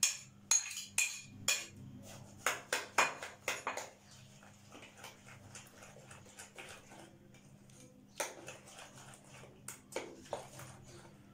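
A metal spoon clinking and scraping against glass bowls as masala is scraped into yogurt: a run of sharp clinks over the first few seconds. Then quieter wet sounds of the yogurt being mixed, with a couple of clinks later, over a faint steady hum.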